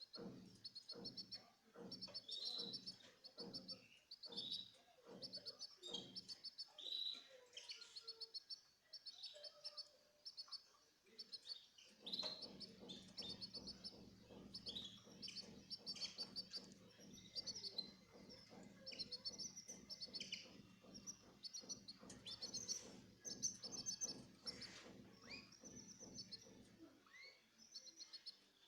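Small cage birds chirping in quick runs of short repeated high notes. A low hum runs under them for most of the second half.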